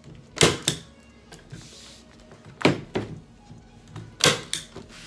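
Manual staple gun driving staples through canvas into a wooden stretcher frame: three sharp double clacks, about a second and a half apart.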